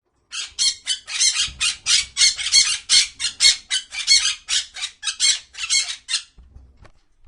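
A bird squawking: a quick run of short, high calls, about three or four a second, that stops after about six seconds.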